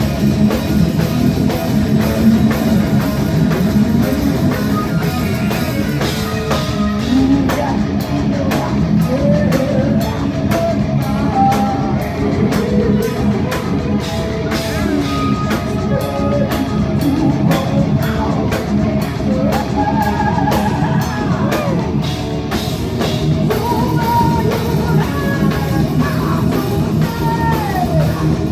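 Heavy metal band playing live, heard from the crowd: distorted electric guitars and a drum kit, with a woman's singing voice coming in about seven seconds in.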